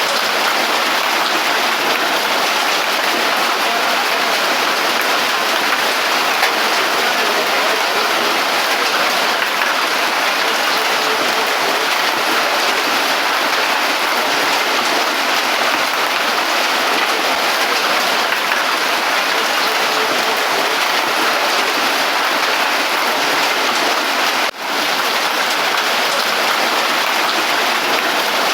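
Heavy rain pouring steadily, an even hiss of water with no breaks except one brief dip about four seconds before the end.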